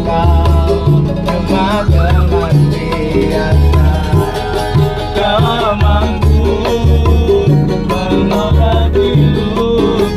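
Live busking band playing on board: a man singing with a wavering, ornamented voice over a strummed small ukulele-like guitar and a steady pulsing bass line.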